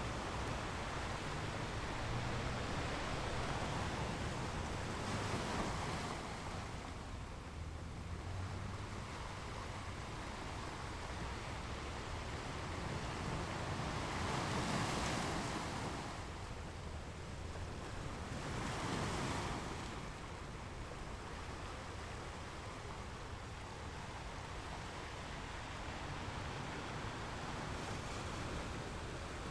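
Ocean waves breaking and washing up a shore, a steady rush of surf with a few louder swells, the biggest about halfway through and another a few seconds later.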